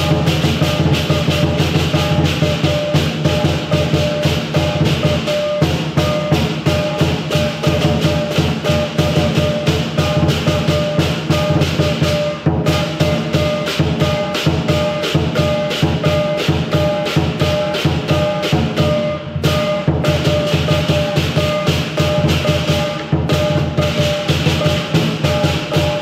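Lion dance percussion: a large lion-dance drum beaten in fast, steady strokes, with several pairs of hand cymbals clashing along in rhythm and ringing. It all stops abruptly at the end.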